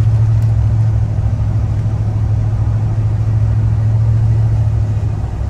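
Steady in-cab drone of a classic GM pickup's 350 V8 cruising at a steady 35 mph, a constant low hum mixed with road noise.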